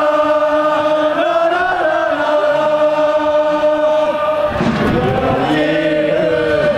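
Football supporters in the stands singing a chant together, many voices holding long notes that shift slowly in pitch.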